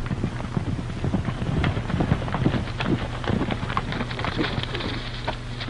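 Hoofbeats of several horses being ridden up, a rapid irregular clatter that grows louder over the first half and eases toward the end.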